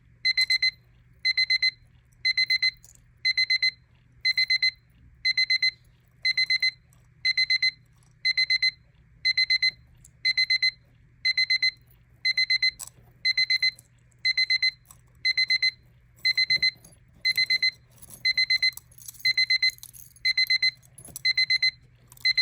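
Battery travel alarm clock's alarm going off: groups of rapid, high-pitched electronic beeps, repeating about once a second.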